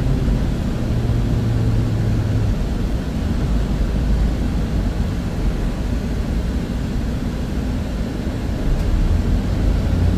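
Semi truck's diesel engine running and low cab rumble as the truck rolls slowly. A steady low engine tone fades out about two and a half seconds in and comes back near the end.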